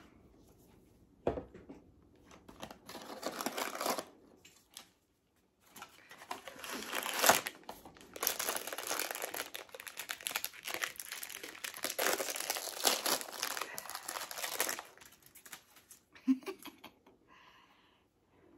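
Blind-box packaging being torn open and crumpled by hand: a knock, then long stretches of crinkling and tearing of the wrapper as a small vinyl figure is unwrapped.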